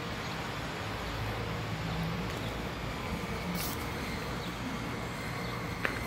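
Steady outdoor background noise with a low rumble, like distant traffic.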